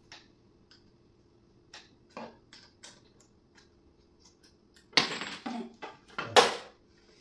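Knocks and clatter of hard furniture parts and hardware being handled during flat-pack assembly: a few light clicks, then two loud clattering knocks about five and six and a half seconds in.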